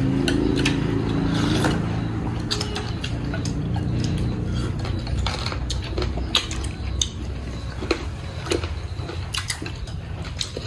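Spoons and chopsticks clicking irregularly against bowls during a meal, over a low steady hum.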